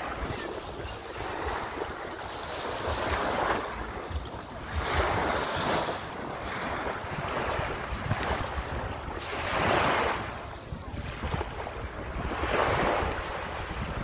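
Small sea waves washing onto a sandy beach, swelling and falling back in surges every two to three seconds. Wind rumbles on the microphone.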